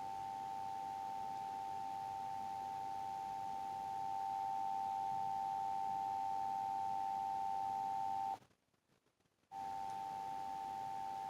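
Emergency Alert System two-tone attention signal (853 Hz and 960 Hz sounded together) on a radio station's Required Monthly Test: a steady high dual tone that announces the alert message to follow. It drops out for about a second near the end, then resumes.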